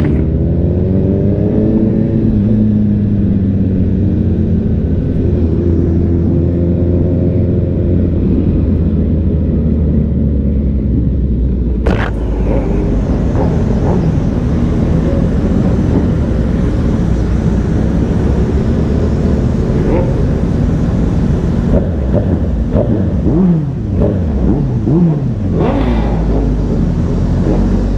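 Sport motorcycle engine running steadily beneath an on-board microphone at low city speed. The pitch climbs over the first couple of seconds as the bike pulls away, then swings up and down several times near the end as the throttle opens and closes.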